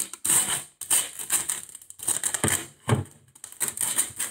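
Clear plastic protective film crinkling and rustling in irregular bursts as it is peeled off a router's top by hand, with a couple of dull knocks about halfway through.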